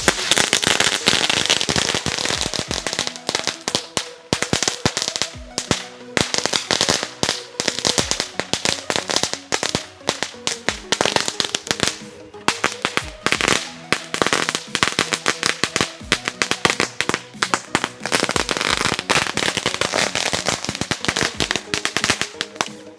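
A ground novelty cracker smoking and crackling non-stop, a rapid stream of sharp pops like a string of firecrackers going off, over background music.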